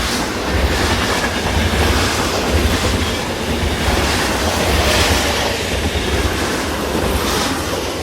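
A train running on rails: a steady low rumble with rail and wheel noise, easing off slightly near the end.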